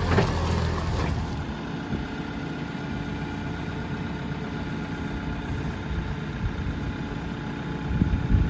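A heavy vehicle's engine running steadily at idle, with a few sharp knocks about a second in and again near the end.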